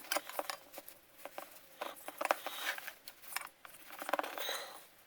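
Handling noises from a small-engine recoil starter and its pull cord: scattered light clicks, taps and rustles.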